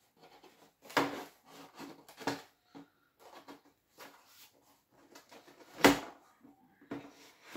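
A cardboard toy box and its packaging being handled as a doll is pulled out: scattered rustling with a few sharp knocks, the loudest about six seconds in.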